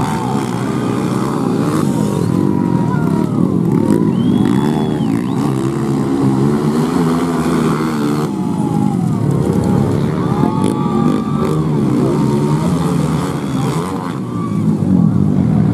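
Several four-stroke trail motorcycles racing on a dirt track, their engines revving up and down over and over as they accelerate and shift.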